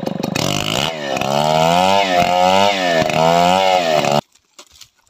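Stihl chainsaw running, then revved up and cutting into a large hardwood stump. Its pitch dips and recovers several times as the chain bites under load. The sound cuts off suddenly near the end.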